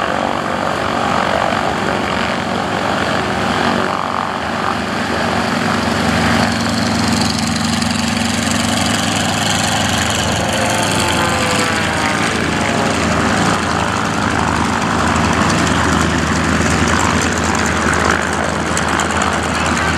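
The piston engine and propeller of a Pitts S-1S aerobatic biplane, running through an aerobatic routine. The drone is continuous, and its pitch wavers up and down as the plane manoeuvres, most clearly about halfway through.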